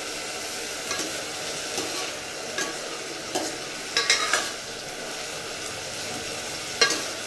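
Steel ladle stirring ivy gourd (tindora) pieces frying in oil in a steel pot, clinking and scraping against the pot about six times, loudest about four seconds in and near the end, over a steady sizzle.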